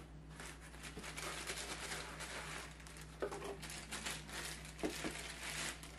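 Plastic wrapping crinkling and a small cardboard box rustling as a laptop charger is unpacked, with a few light clicks and taps.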